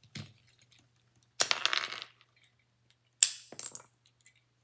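Plastic pieces of a cheap puzzle cube clicking and clattering as it is worked apart: a short rattle of clicks about a second and a half in, then one sharp clack about three seconds in, followed by a few small clicks.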